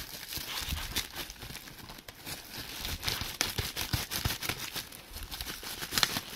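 Toy packaging crinkling and rustling as action figures are worked out of their boxes, with irregular small crackles and taps throughout.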